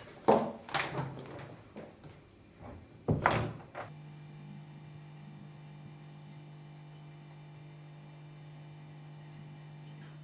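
A series of heavy thuds with ringing tails, the loudest about three seconds in, then a steady low hum.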